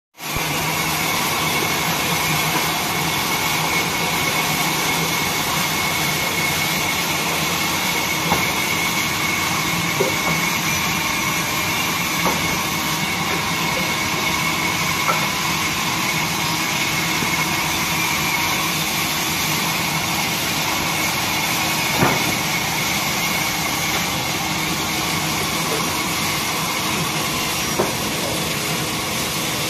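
Horizontal band sawmill running steadily as its blade cuts a timber log fed along the carriage. It makes a continuous machine noise with a steady high whine, broken by a few sharp clicks.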